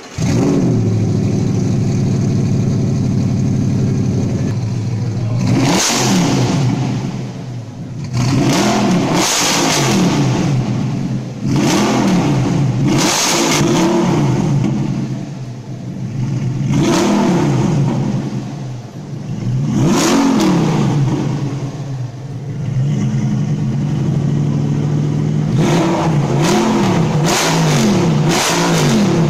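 Audi R8's 4.2-litre V8 through an aftermarket QuickSilver exhaust, loud: it fires up at the start, holds a steady raised idle for about five seconds, then is revved again and again, the pitch rising and falling with short drops back to idle between revs.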